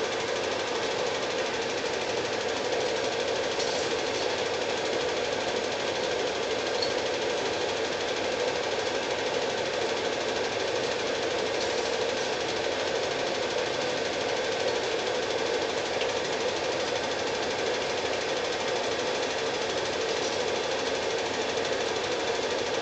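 Cine film projector running, a steady, even mechanical clatter that never rises or falls.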